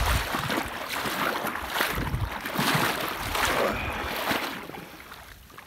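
Wind rushing over the microphone, with rustling and low knocks from the camera being handled; the noise dies down near the end.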